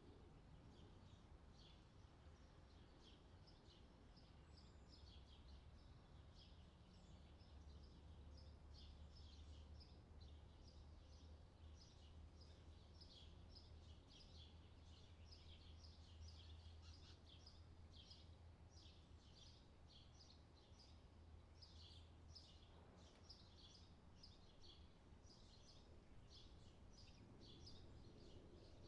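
Faint, rapid chirping of small birds, many short calls a second, over a low steady hum that fades out about three quarters of the way through.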